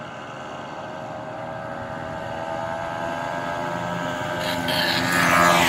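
Small two-stroke Simson mopeds approaching in a line, their engine drone growing steadily louder and slightly higher in pitch. The leading one comes close and is loudest about five seconds in.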